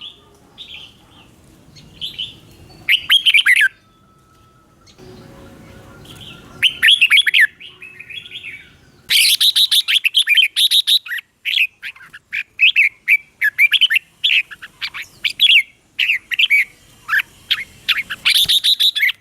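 Red-whiskered bulbul song: short, warbling phrases, scattered at first, then coming fast one after another from about nine seconds in.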